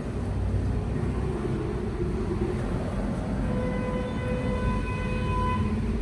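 Hyundai Creta on the move: a steady low rumble of road and running noise. A faint steady tone with overtones sounds for about two seconds past the middle.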